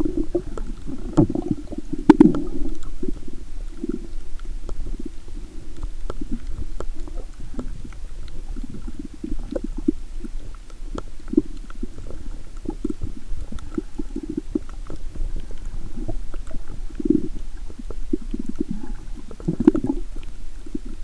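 Muffled underwater water noise picked up by a camera held below the surface, low and uneven with irregular louder surges and scattered small clicks. A sharp knock about two seconds in is the loudest sound.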